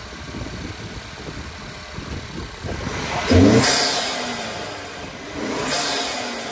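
2019 Honda Accord's 2.0-litre turbocharged four-cylinder idling, then blipped twice: a sharp, loud rev about three seconds in and a smaller one near the end, each falling back toward idle. It breathes through a freshly fitted K&N open-box cold air intake, which makes the intake sound louder.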